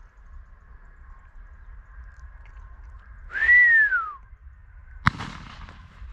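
A person's whistle, a single loud note that rises and then falls, followed about a second later by one shotgun shot with a short echo, fired at a mistle thrush.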